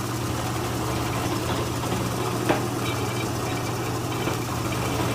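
Drill press motor running with a steady hum. A sharp click comes about two and a half seconds in, followed by a faint high whine.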